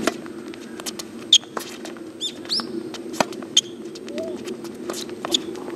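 Tennis ball hit by rackets and bouncing during a rally, starting with a serve: sharp pops a second or two apart, the loudest about a second and a half in. Short high chirps come between the hits over a steady low hum.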